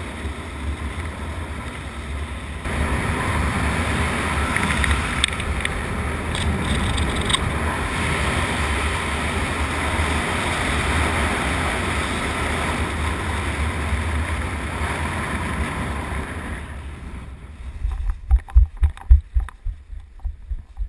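Wind rushing over a camera microphone during a parachute canopy descent, louder from about three seconds in. Near the end the wind dies away and a run of irregular low thumps follows as the jumper touches down.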